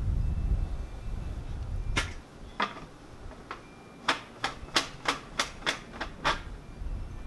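Spark igniter button on a homemade hairspray-fuelled potato cannon clicked about eleven times: a few single clicks, then a quicker run of about three a second, with no shot yet. A low rumble comes before the clicks in the first two seconds.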